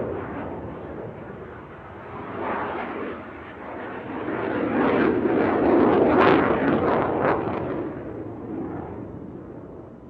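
Jet aircraft engine noise that swells to its loudest about six seconds in, with a rough crackle at the peak, then fades away near the end.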